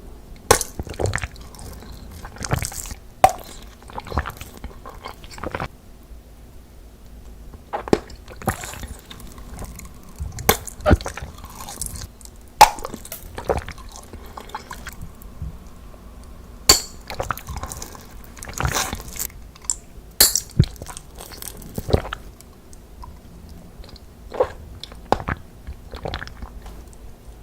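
Water splashing and squelching in irregular sharp strokes, several in quick succession, then short pauses.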